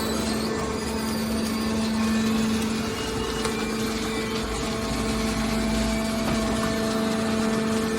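Scrap metal hydraulic baler running: a steady machine hum from its hydraulic power unit, with a deeper rumble for a second or two about halfway through.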